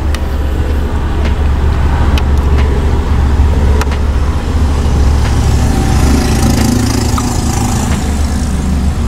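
Steady low rumble of a car engine idling, heard from inside the cabin, with a few small sharp clicks from spoons and eating.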